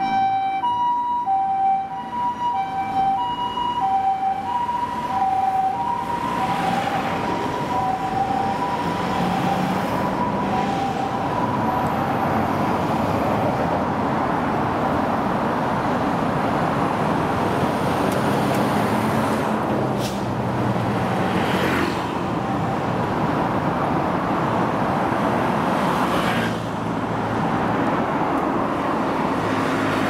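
Japanese ambulance two-tone "pee-poh" siren, alternating evenly between a high and a low tone and fading away over the first dozen seconds as the ambulance drives off. Steady road traffic noise follows, with vehicles passing now and then.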